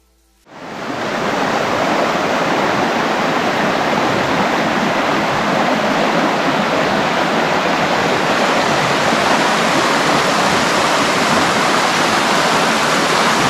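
Loud, steady rushing of running water, starting abruptly about half a second in.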